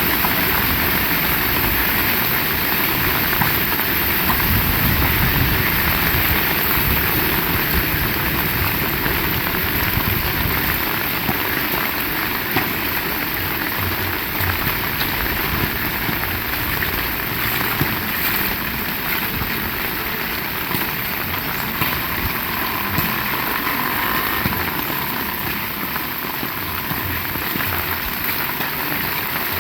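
Heavy rain falling steadily: a dense, even hiss with scattered louder drop ticks and an uneven low rumble underneath.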